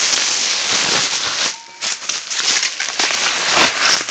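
Packaging wrap crinkling and crackling loudly as it is pulled off a parcel, with a short pause about a second and a half in.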